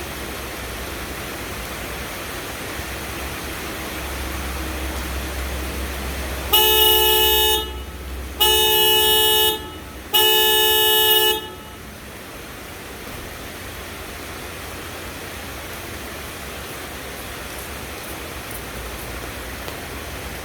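A car's original horn and an added aftermarket snail horn sounding together, wired to the same terminal: three blasts of about a second each, one after another.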